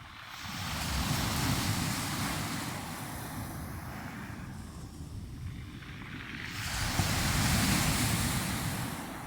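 Sea waves breaking on the shore: two surges, each building and washing back over a few seconds, about six seconds apart. Wind buffets the microphone underneath.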